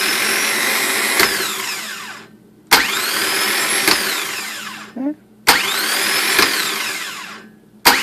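Rebuilt starter motor from an 8.1 L Vortec, with a new solenoid, bench-tested off a portable jump pack. Three times it engages with a sharp clack and spins up with a high whine, clicks partway through, then winds down, and a fourth engagement starts near the end. It spins freely: the rebuilt starter works.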